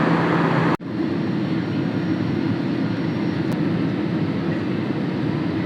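Airliner cabin noise in flight: the jet engines' steady, even drone heard from inside the cabin. A brief different noise at the start cuts off sharply under a second in.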